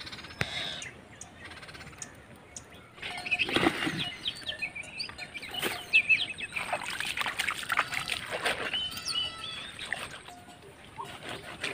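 Small birds chirping over and over, with a louder stretch of water splashing and rustling from about three seconds in to about nine seconds.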